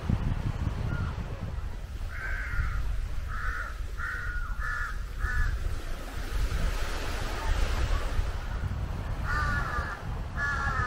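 A crow cawing: a run of five harsh caws, each shorter than the one before, starting about two seconds in, then two more caws near the end, over a low rumble of wind.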